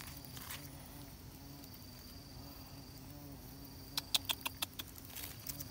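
Faint, steady insect noise, with a quick run of small clicks about four seconds in.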